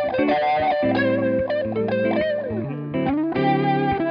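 Two electric guitars playing together through a Neo Instruments micro Vent 16 Leslie rotary-speaker simulator pedal, chords and single-note lines with several notes wavering in pitch. A little past halfway a note glides downward.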